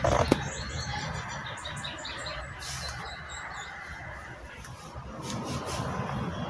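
Faint bird chirping over a low steady rumble, with a few brief rustles of the phone being moved.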